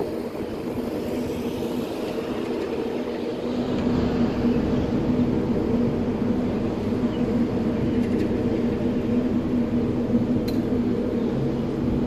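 Street traffic rumble with a steady low hum, and one short click near the end.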